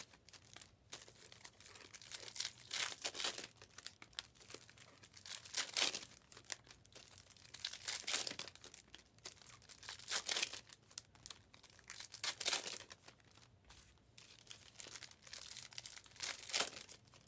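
Foil trading-card pack wrappers crinkling and being torn open, in short crackly bursts every couple of seconds.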